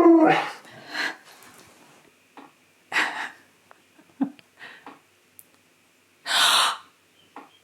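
A person gasping dramatically: sharp, noisy intakes of breath, one about three seconds in and a louder, longer one near the end, with smaller breathy sounds between. A voiced sound trails off at the very start.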